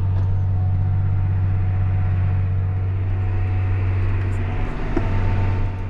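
John Deere 8300 tractor's diesel engine running steadily under load, heard from inside the cab as a steady low drone, dipping slightly in level near the end.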